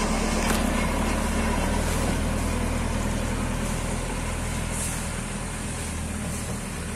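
JCB 3DX backhoe loader's diesel engine running steadily as the machine drives off, fading gradually as it moves away.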